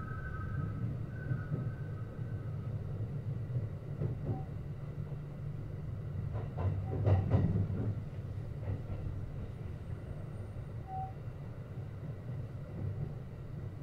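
Kintetsu 9820 series electric train running, heard from inside the car: a steady low rumble of wheels on rail, with a quick run of wheel clicks over rail joints about seven seconds in, the loudest moment.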